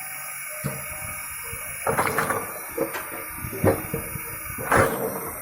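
Firewood being handled: about half a dozen irregular knocks and thuds of wood on wood, the loudest near the end.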